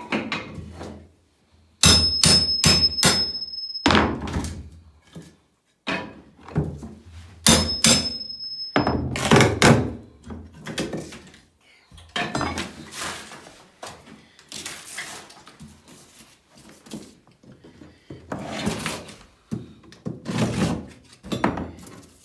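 Heavy knocks and thuds, with two runs of four or five quick sharp strikes carrying a short high ring, then irregular bumps and knocks.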